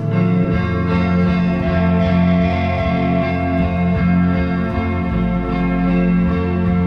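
Instrumental music: guitar with effects playing long sustained notes over a steady low drone.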